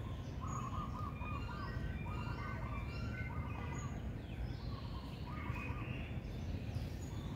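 Birds chirping in short repeated phrases, about one a second, over a steady low rumble.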